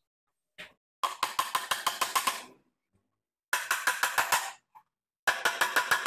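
Hammer tapping small wire nails through 6 mm plywood into a 12 mm plywood strip: three runs of quick taps, about eight a second, with short pauses between.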